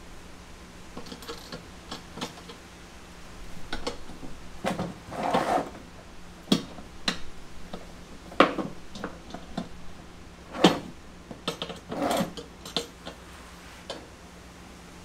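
Wrench tightening nuts and bolts on a poly dump cart's steel frame: scattered metal clicks and clinks, with longer rattling scrapes about five seconds in and again near twelve seconds.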